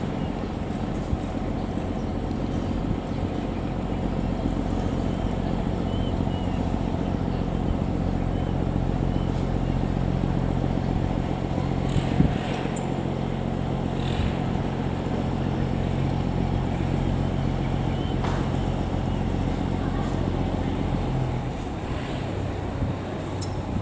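A boat's engine running steadily at a constant pitch, settling a little lower and quieter near the end, with a few faint clicks over it.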